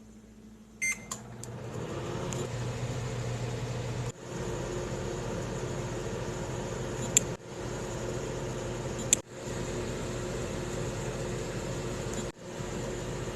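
Microwave oven started with a few clicks, then running with a steady hum as it heats a bowl of instant ramen in water. The hum cuts out briefly four times, and two short sharp ticks come in the middle.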